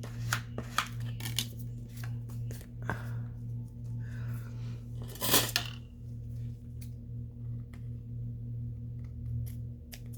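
Paper and craft tools being handled: scattered light rustles and clicks, with one louder rustle about five seconds in, over a steady low hum.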